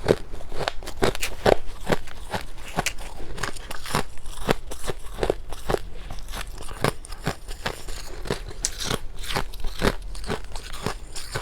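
Close-miked biting and chewing of powdery freezer frost ('snow ice'): a steady run of crisp crunches, about two to three a second.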